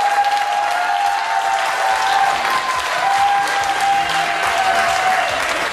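Audience applauding, with music playing underneath.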